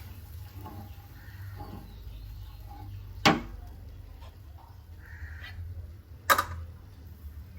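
Two sharp knocks of a cooking utensil against a pan, about three seconds apart, over a low steady hum.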